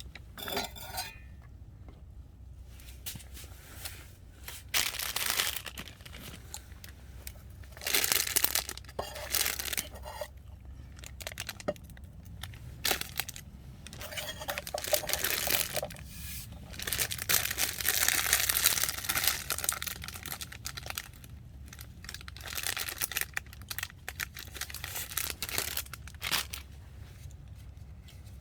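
Rustling and crinkling of something crinkly being handled, in irregular bursts a second or several seconds long, over a faint steady low hum.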